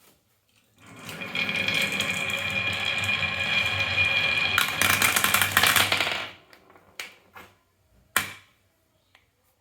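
Marbles rolling and clattering down a wooden marble-run track: a continuous rolling rattle with a ringing hum that rises about a second in, grows into quicker clatter, and stops after about six seconds, followed by a few sharp clicks of marbles knocking into place.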